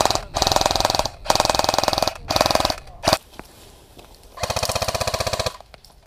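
Airsoft rifle firing full-auto: a rapid rattle in about five short bursts, then a pause of about a second before one more longer burst near the end.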